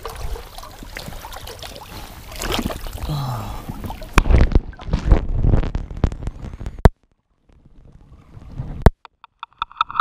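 Creek water sloshing and splashing over a GoPro Hero 4 as it is dunked underwater, with heavy low rumbling while it is submerged. The sound cuts out about 7 s in, and near the end a rapid stuttering electronic tone comes in: the water-damaged camera's weird noise.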